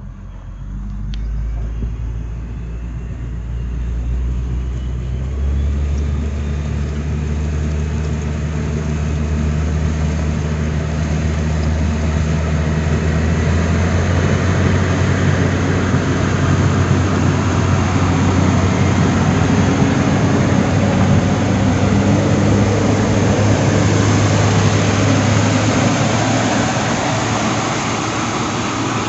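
XCMG motor grader's diesel engine running, growing louder over the first several seconds with its speed stepping up about five seconds in, then holding a steady, loud run.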